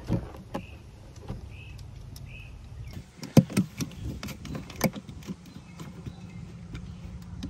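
Hand screwdriver driving a small self-tapping screw through a sensor clip into a plastic cooler liner: scattered small clicks and creaks, with a sharp knock about three and a half seconds in and another near five.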